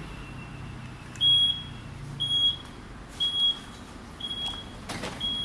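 Aftermarket power tailgate warning buzzer on a Mazda CX-5 beeping once a second while the tailgate closes under power, five short high beeps, with a sharp click near the end.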